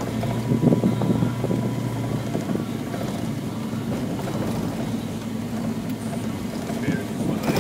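Rally car driving on a dirt track, heard from inside the cabin: a steady engine drone with tyre and road noise, and a cluster of knocks and rattles in the first second or so.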